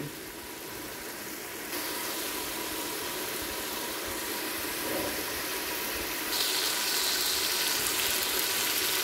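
Kofta curry cooking in a pot on the stove: the masala gravy bubbling and sizzling in its oil as a steady hiss. It gets louder and brighter twice, about two seconds in and again past six seconds.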